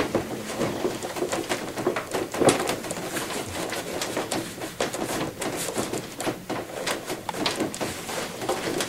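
Irregular clicks and knocks of metal and plastic parts being handled as a long bolt is worked through a scooter's front end and steering column. The sharpest knocks come at the start and about two and a half seconds in.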